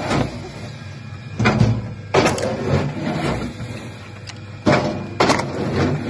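Five heavy knocks and clunks, irregularly spaced a second or more apart, over a low steady machine hum.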